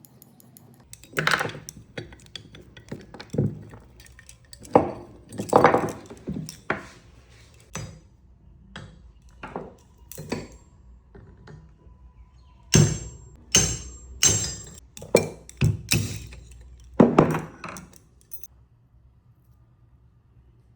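Irregular series of sharp metallic knocks and clinks, roughly two dozen, as metal parts of a table fan motor are tapped and handled with tools during a shaft bush change; some strikes ring briefly, and they stop a couple of seconds before the end.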